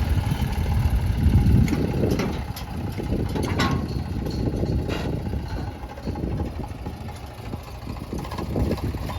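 Diesel engine of earthmoving machinery running steadily, with a few sharp knocks about two to five seconds in.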